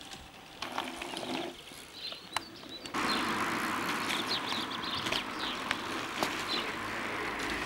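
Outdoor ambience with birds chirping. About three seconds in, the background jumps to a louder steady hiss, with bird chirps still heard over it.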